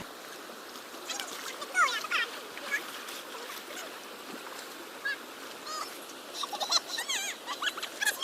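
Children squealing and shrieking in short, high, sliding cries over the steady rush of a mountain stream, with the cries coming thicker near the end.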